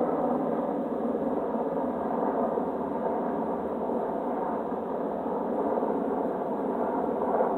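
Two Sikorsky UH-60 Black Hawk helicopters flying over, a steady drone of their rotors and twin turboshaft engines with a hum of several steady tones.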